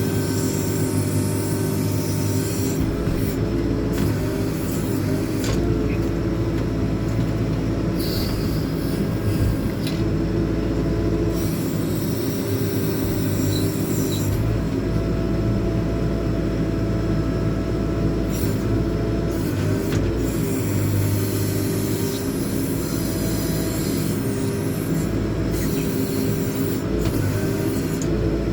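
JCB 4CX backhoe loader's diesel engine running steadily under load as the rear backhoe boom is worked, with a thin hydraulic whine that comes and goes.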